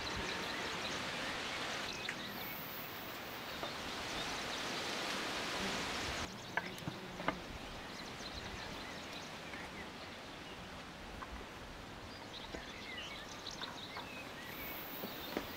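Outdoor ambience with a steady rustling hiss for about six seconds. It then drops abruptly to a quieter background, where a wooden cutting board is set down on a cloth-covered floor with two light knocks. Faint bird chirps and small ticks come later.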